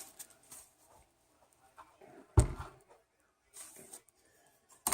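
Faint rustling of takeout packaging, with one sharp low thump about two and a half seconds in.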